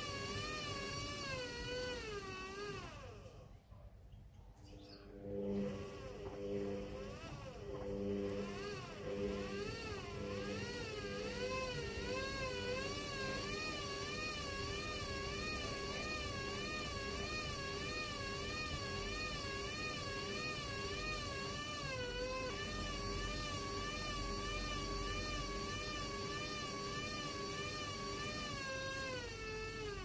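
Hoover front-loading washing machine's drum motor whining as it turns a heavy wet carpet. The pitch rises and falls about once a second. The whine drops out briefly a few seconds in, then returns with a lower steady hum. Just before the end the pitch falls away as the drum slows to a stop.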